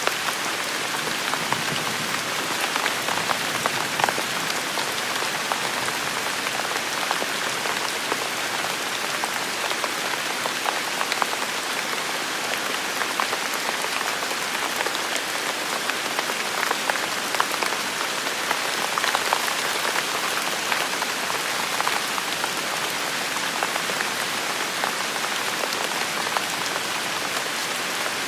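Steady rain falling, with a constant hiss and many individual drops pattering on a hard surface.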